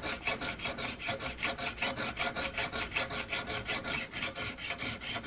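Hand file rasping in quick, even strokes across a sheet-brass patchbox side plate set into a wooden rifle stock, bringing the brass down flush with the wood for a final fit.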